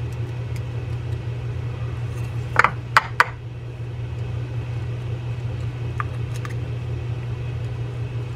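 Metal pick clicking against the drag washers inside an Olympic Zebra 4000 spinning-reel spool as the washers are prised out: three sharp metallic clicks close together about two and a half to three seconds in, then a couple of faint ticks, over a steady low hum.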